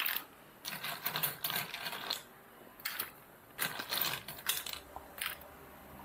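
Ice cubes clinking and rattling against a clear plastic cup as an iced milk drink is stirred with a long spoon: clusters of quick sharp clicks, densest in the first two seconds and again about three to five seconds in.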